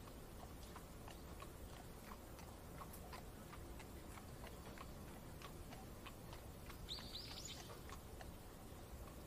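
Faint layered rain-and-carriage ambience: a steady low rumble with light, irregular ticks throughout, and a brief run of bird chirps about seven seconds in.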